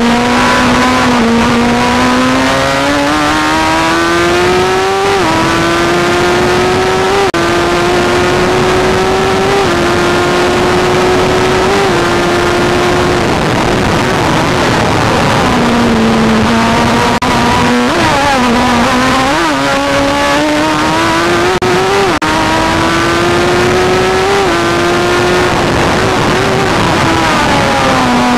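Formula Gloria single-seater racing car's engine heard from on board, revving hard with its pitch climbing and dropping sharply at each gear change. Partway through it eases off and changes down for a corner, then pulls up through the gears again, with wind noise over it.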